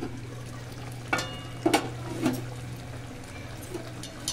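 Chicken frying in spice paste, sizzling in an aluminium karahi on a gas stove, over a steady low hum. About a second in and twice more shortly after come sharp metallic clinks with a brief ring as the aluminium lid is handled and lifted off the pan.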